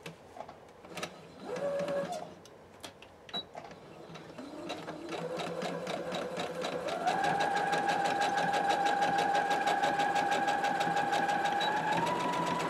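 Electric sewing machine stitching through fabric and batting. After a few clicks and a brief burst, the motor speeds up from about four seconds in to a steady fast run of needle strokes, speeds up a little more near the end, then stops.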